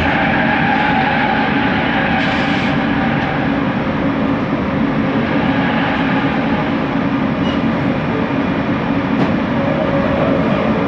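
Bombardier Innovia ART 200 metro train running at speed, heard from inside the car: steady rolling rumble with a constant motor hum.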